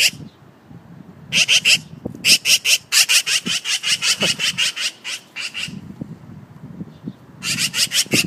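Magpie chattering: trains of rapid, rattling notes, about five a second, with a short burst about a second in, a long run of several seconds, and another burst near the end.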